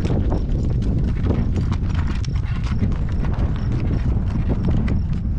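Shod horse's hooves clip-clopping at a walk while it pulls a cart, the knocks coming thick and uneven over a steady low rumble.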